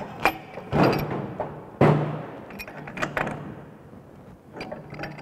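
Metal clanks, knocks and scraping from pipe fittings and tools being handled at a water pump's outlet connection, several sharp knocks in quick succession with rasping in between.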